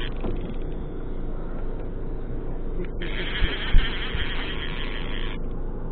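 Boat's engine running with a steady low hum, and a hiss that fades and then comes back about three seconds in. A short knock comes a little after that.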